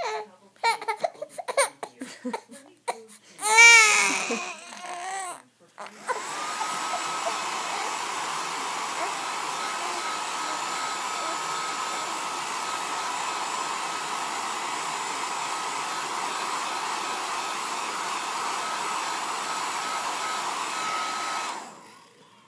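A baby fusses and gives one short loud cry. About six seconds in, a handheld hair dryer switches on and runs steadily: a rushing blow with a faint whistle in it. It switches off shortly before the end.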